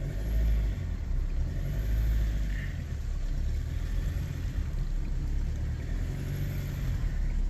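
Car engine running steadily at low revs, a low rumble heard from inside the cabin while the car creeps along.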